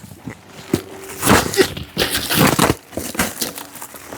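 Crinkling and crunching as hands dig through a smashed pumpkin, coming in a few short bursts.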